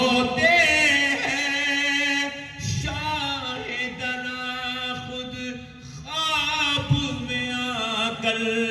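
A man chanting a line of an Urdu devotional verse in long, drawn-out melismatic notes. He stretches the word 'rote' ('they weep') over three sustained phrases with bending, wavering pitch.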